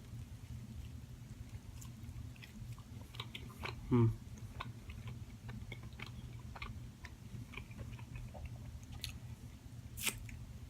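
Close-up chewing and mouth sounds of a person eating a croissant breakfast sandwich, with many small scattered clicks and smacks over a low steady hum. A short vocal sound comes about four seconds in, and a sharper click near the end.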